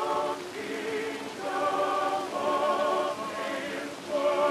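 Background music: voices singing long held notes with a wavering vibrato, changing pitch about once a second, like a choir.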